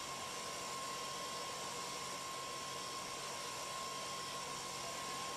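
CNC sliding-headstock lathe's rotary end mill milling a brass part: a steady whirring hiss with a thin, constant high whine.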